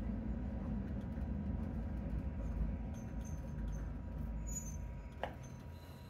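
Diesel railcar running, heard from inside the cabin as a steady low rumble that grows quieter toward the end, with a few faint high squeaks and a single short click about five seconds in.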